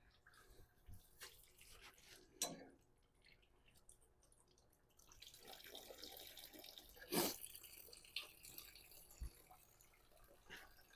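Engine coolant trickling and dripping from the truck's disconnected radiator cooling lines, faint, with a few light clicks and one louder knock about seven seconds in.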